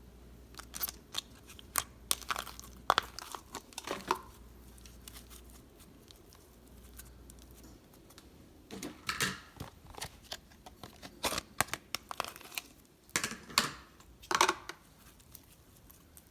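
Slime with foam beads being squished, stretched and mixed by hand: irregular bursts of sticky crackling and popping, with a quieter pause in the middle.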